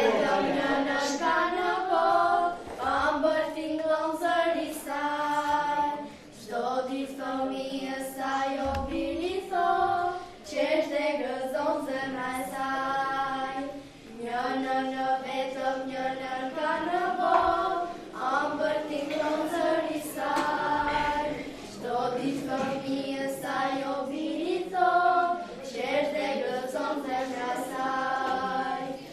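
A choir of young girls singing a song together, unaccompanied, in phrases of held notes with short breaks between them.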